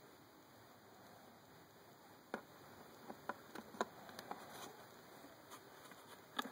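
Knives and their hard sheaths being handled: a scatter of short, sharp light clicks and taps that starts about two seconds in, over a faint hiss.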